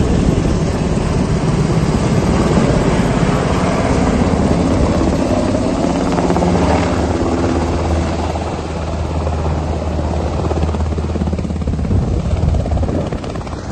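CAL FIRE Sikorsky S-70i Firehawk helicopter flying in and hovering low over a water pond, with its rotors and turbines running loud and steady. A low drone from the rotors is strongest in the middle.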